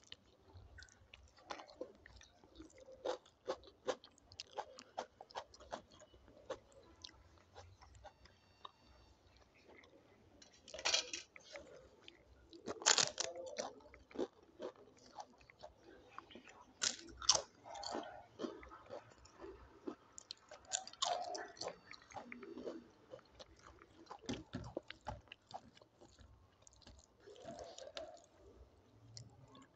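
A person eating: steady wet chewing, broken by several loud crisp crunching bites, a few seconds apart in the middle stretch. The food is dal and rice with crisp papad and salad.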